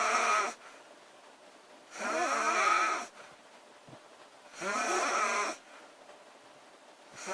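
A woman snoring loudly in a steady rhythm, each snore about a second long and coming roughly every two and a half seconds.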